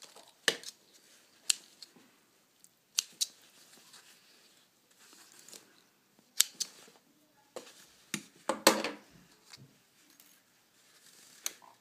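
Small scissors snipping sewing threads at the ends of a freshly machine-stitched seam: several separate sharp snips a second or more apart, with soft rustling of the cotton fabric being handled between them.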